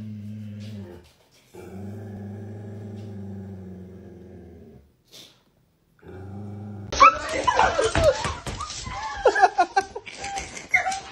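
A dog growling: two long, steady low growls, then a shorter one. About seven seconds in it gives way suddenly to a louder jumble of high, sliding yelps and cries with sharp knocks.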